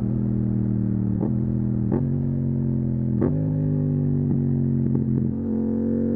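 Yamaha MT-07's parallel-twin engine through a full Akrapovic titanium exhaust, off the throttle and running at a steady, lower rpm with a handful of sharp pops at irregular intervals. Near the end the revs start to rise again.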